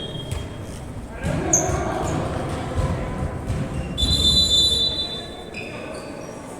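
Indoor basketball game in a gym: a murmur of player and spectator voices, with short high shoe squeaks on the court and a longer high squeal about four seconds in.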